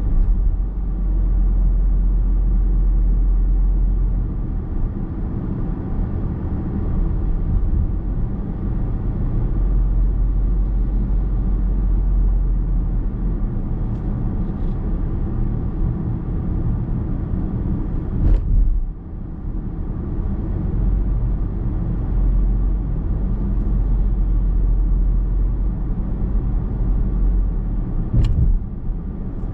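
Car driving on a road, heard from inside the cabin: a steady rumble of tyres and engine. Two brief thumps come through, one a little past the middle and one near the end.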